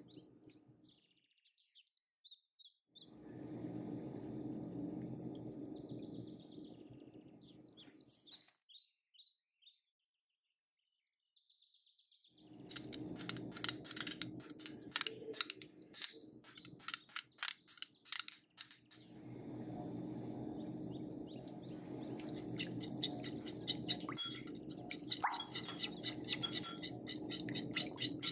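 Metal spoon clicking and scraping against glass bowls as sauce is scraped in and then stirred, in quick irregular clinks. Birds chirp in the background through the first third, over a steady low hum.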